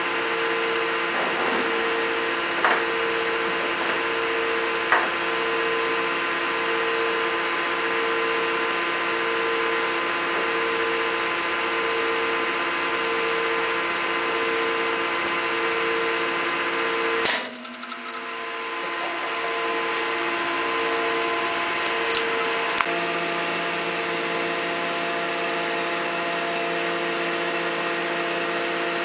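Tinius Olsen universal testing machine running with a steady hum and a regularly pulsing tone as it pulls a necked metal test bar in tension. About two-thirds of the way through, the bar snaps at the neck with one sharp bang. A few seconds later there is a click, and the hum changes tone.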